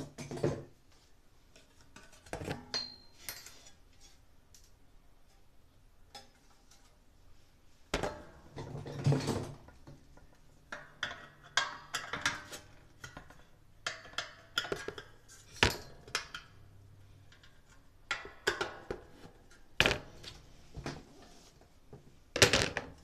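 Irregular metallic clinks, taps and knocks of parts and tools being handled, with a few sharper knocks scattered through.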